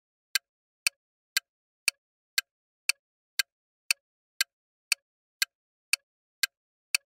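Countdown timer ticking sound effect: short, sharp ticks, about two a second, with silence between them.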